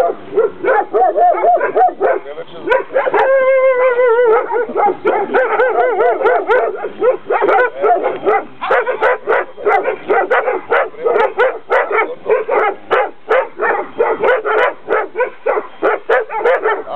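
Dogs barking excitedly, with fast overlapping barks and yips that go on without a break. About three seconds in there is one longer, wavering howl-like call.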